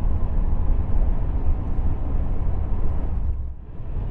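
Car interior noise while driving in strong wind: a low, steady rumble of road and wind noise heard inside the cabin, easing briefly near the end.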